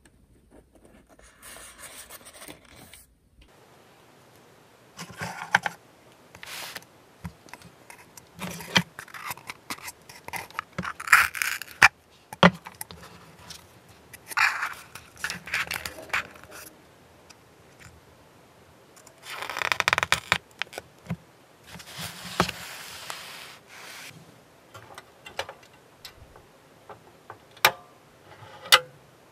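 Hand work with tools and plastic model parts on a modeller's bench: irregular bouts of scraping and rustling, broken by sharp clicks, with two loud clicks near the end.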